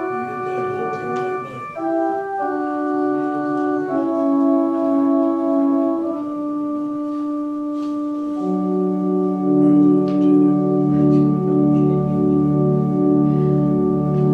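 Organ playing slow sustained chords, closing on one long final chord that grows fuller as lower notes and a deep bass come in, some notes pulsing, before it stops at the very end.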